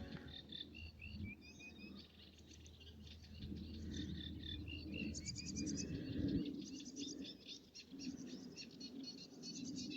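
Common nightingale singing: varied phrases of whistled notes and fast rapid-fire trills, one after another, over a low rumble.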